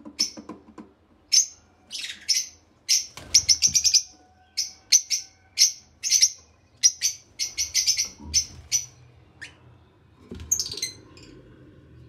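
Caged lovebirds chirping: short, sharp, high calls, some single and some in quick runs of four or five.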